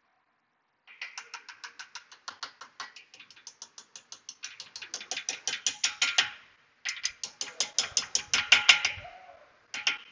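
Ratchet wrench clicking in two quick runs of about six clicks a second. The first run grows louder, and after a short pause the second runs for about two seconds.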